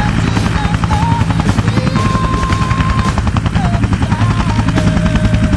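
Bell UH-1 Huey helicopter hovering low and settling to land, its two-blade main rotor beating in a rapid, even rhythm over the steady drone of the turbine engine.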